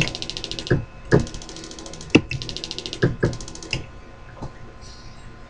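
Small motor on a 6-volt supply running the leadscrew drive in four short spurts, each a rapid, even mechanical ticking, with sharp clicks between the runs as the joystick switches it on and off.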